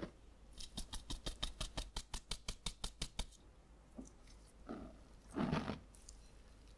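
Stainless fine-mesh sieve shaken over a glass bowl to sift cake flour: a quick, even rattle of about seven or eight ticks a second for nearly three seconds. Near the end, bread flour is tipped from a small glass bowl into the big one with a soft, dull thump.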